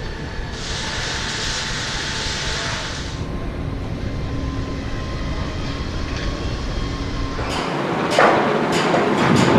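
Construction-site noise: a steady low machine rumble with a hiss over it for the first few seconds, then a quick series of knocks and clanks near the end.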